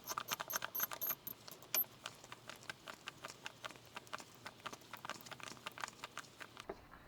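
Hand-turned die stock cutting a thread on a brass part, making a rapid run of light metallic clicks and ticks as the die is worked forward and backed off. The clicks are louder in the first two seconds, then fainter, and stop shortly before the end.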